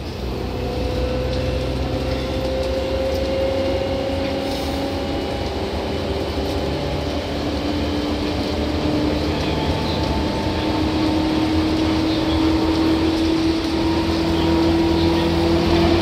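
Seibu 2000 series electric train accelerating, its traction motors whining in several tones that rise slowly in pitch over a steady low rumble of the running gear, growing gradually louder.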